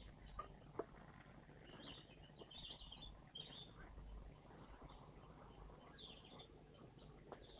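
Faint high chirps of small garden songbirds in a few short clusters, with two sharp clicks under a second in.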